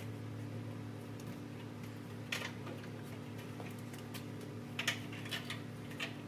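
A few light clicks and knocks of metal parts being handled, the clearest two about two and a half and five seconds in, over a steady low hum.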